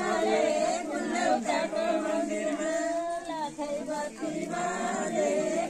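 A group of voices singing a bhajan together, holding long notes.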